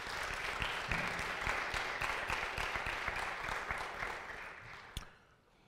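Congregation applauding, swelling during the first second and dying away about five seconds in.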